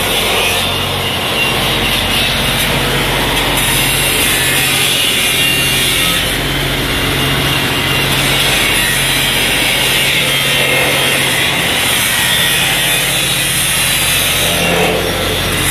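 Loud, steady rough machinery noise with a constant low electrical hum underneath, unchanging and without breaks.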